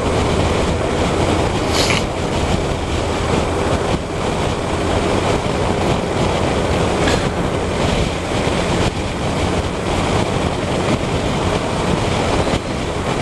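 Kawasaki GTR 1400 motorcycle on the move: a steady engine and road drone under heavy wind rush on the microphone. The engine runs evenly, without coughing or spluttering, just after its spark plugs were changed.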